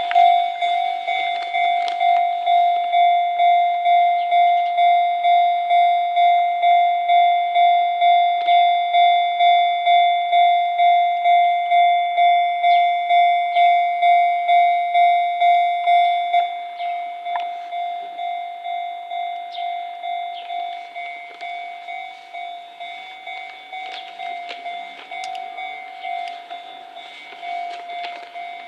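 Japanese railway level-crossing alarm ringing, a steady electronic ding repeating about twice a second. About sixteen seconds in it drops to a quieter volume and keeps ringing.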